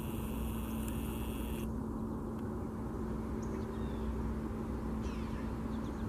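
Outdoor ambience: a steady low hum and rumble, with a few faint, short bird chirps from about three seconds in. A high hiss cuts off suddenly just under two seconds in.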